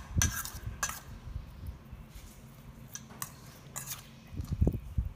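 A whole marinated bantam chicken being turned and rolled by hand in a stainless steel bowl: soft handling noises with a few sharp knocks of the bird and bowl, and a short run of louder low thumps near the end.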